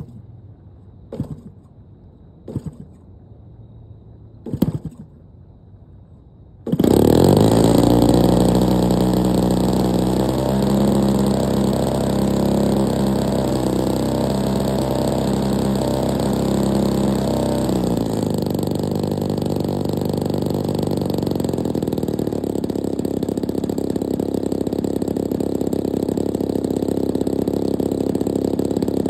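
Brand-new DLE 35RA single-cylinder two-stroke gas engine on an RC plane, starting for the first time. Three short pops come first, then the engine catches suddenly and runs steadily at a higher speed. About two-thirds of the way in it drops back to a slower idle.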